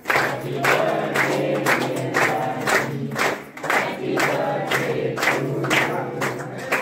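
A group of adults and children singing a birthday song together, clapping in time at about two claps a second.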